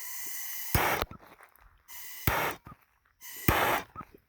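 Three short hisses, each with a sharp click near its loudest point, while the fuse of a 4-inch canister firework shell is being lit.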